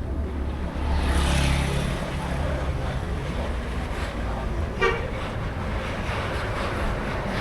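A bus engine running as it moves through, with one brief horn toot about five seconds in.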